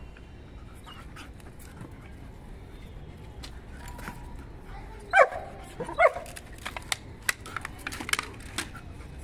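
German Shepherd giving two short play barks, about five and six seconds in, with scattered small clicks and scuffs between them.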